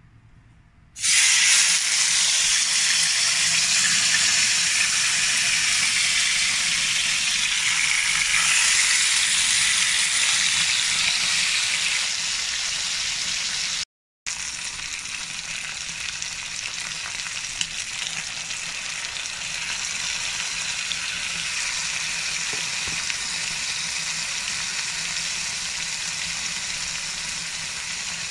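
Miso-marinated pork slices sizzling in a hot frying pan. The sizzle starts suddenly about a second in and stays loud for about ten seconds. It drops out for a moment a little past halfway, then goes on as a slightly softer steady sizzle.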